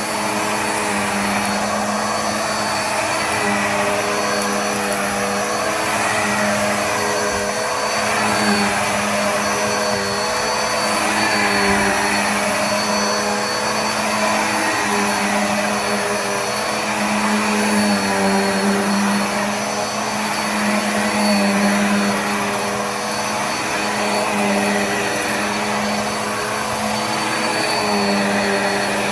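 Black + Decker AirSwivel upright vacuum cleaner running steadily in use, a continuous motor hum and airflow hiss whose level swells and eases slightly as it is pushed back and forth.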